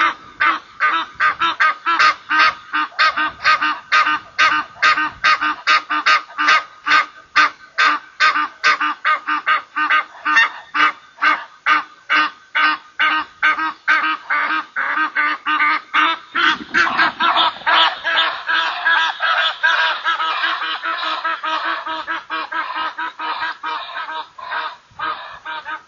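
Egyptian geese honking: a long, steady run of harsh calls, about two to three a second. About two-thirds of the way through, the calls thicken and overlap as more than one bird calls at once.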